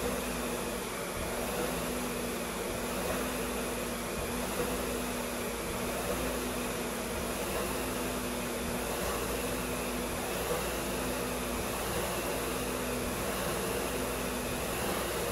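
Concept2 SkiErg's fan flywheel whirring under steady pulls, the whir swelling in a regular rhythm of about one pull a second.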